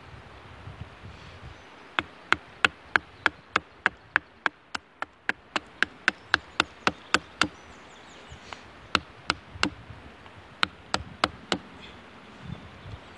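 Quick, light chops of a Hultafors Classic Trekking hatchet into a wooden spoon blank standing on a log, roughing out the curve under the bowl. The sharp strikes come about three a second, starting about two seconds in, pausing briefly past the middle, then resuming and stopping shortly before the end.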